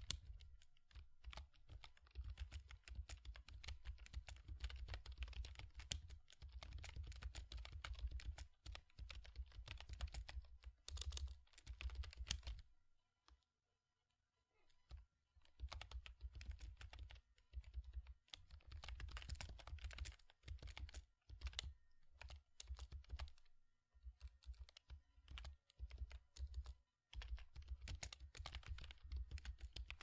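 Fast typing on a computer keyboard: dense runs of key clicks, with a pause of about two seconds near the middle before the typing resumes.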